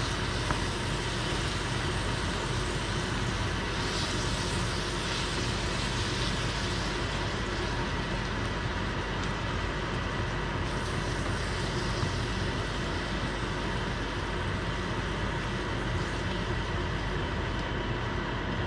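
Swiss chard steaming and sizzling in a hot stainless-steel skillet as it is stirred: a steady hiss, with a faint steady hum underneath.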